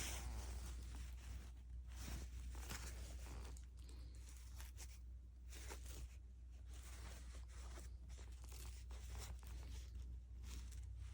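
Faint, irregular rustling and crinkling from something being handled, over a steady low hum.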